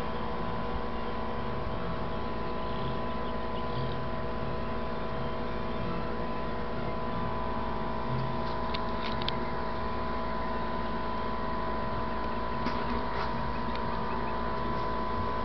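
Steady mechanical hum made of several held tones, unchanging throughout. A few light taps come about eight seconds in and again near thirteen seconds, sandhill cranes' bills pecking food off a concrete slab.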